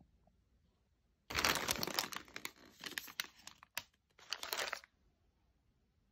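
Plastic food packaging crinkling and crackling as it is handled, in several bursts starting about a second in.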